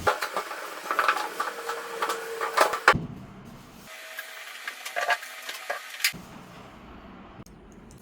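Clicks, knocks and rubbing from hand work with tools and parts, in short clips that cut abruptly from one to the next; a brief steady hum sounds under the clicking about a second and a half in.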